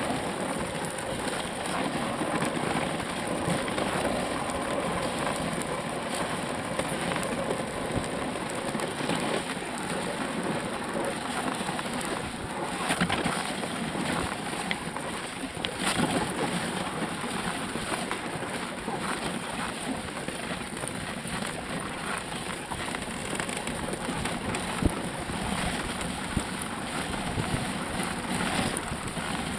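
Dog sled moving over snow: a steady scraping hiss from the runners, with scattered small knocks and crunches.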